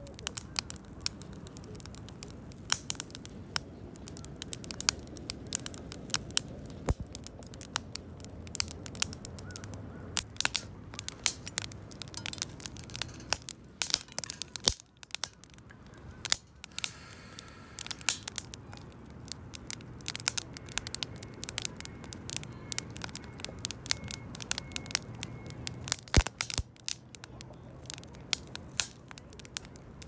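Wood campfire crackling, with frequent sharp pops and snaps and a short lull about halfway.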